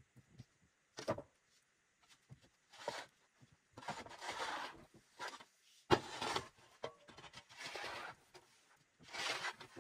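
Faint, irregular crunching and scuffing of a person stepping and working in snow, with a sharp click about a second in.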